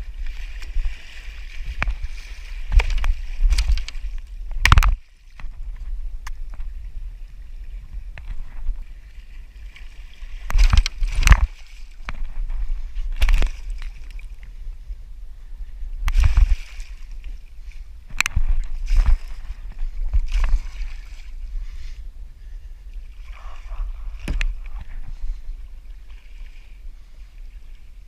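Water sloshing and splashing around a kayak, with loud knocks and thumps at uneven intervals over a steady low rumble.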